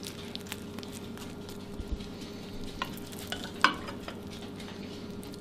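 Metal serving spoon scooping baked cheese casserole out of a glass baking dish onto a ceramic serving dish: soft scrapes and light clicks, with one sharper knock a little past halfway, over a steady low hum.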